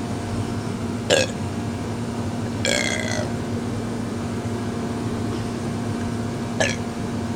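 A person burping on purpose, three separate burps: a short one about a second in, a longer pitched one about three seconds in, and another short one near the end. A steady low hum runs beneath.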